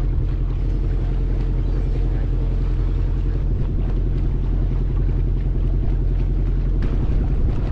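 Engine of a small wooden passenger ferry boat running steadily under way, a low, even drone.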